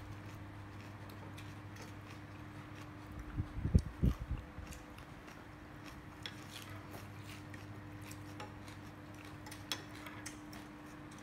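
Metal spoon and chopsticks clinking lightly against a ceramic soup bowl while stirring noodle soup, over a steady low electrical hum. A brief louder low rustle about four seconds in.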